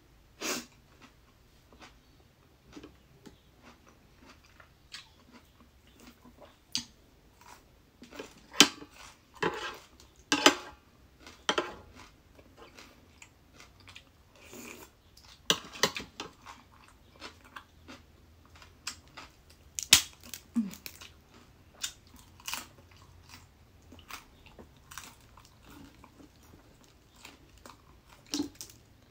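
Close-up crunching and chewing of crisp cucumber salad: irregular crunchy bites and wet mouth sounds, with the loudest crunches coming in clusters about a third of the way in and again at about two-thirds.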